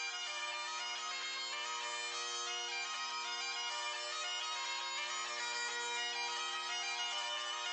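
Bagpipe music: a melody played over steady, unchanging drones.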